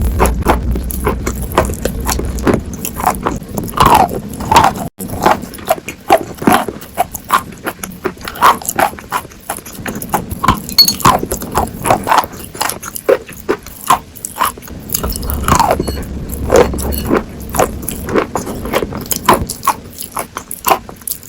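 Sawn chalk being bitten and chewed: a run of irregular, crisp crunches, several a second.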